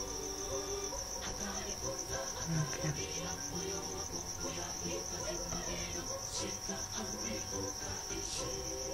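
A continuous, high-pitched, rapidly pulsing trill, with faint lower sounds underneath and two short ticks near the end.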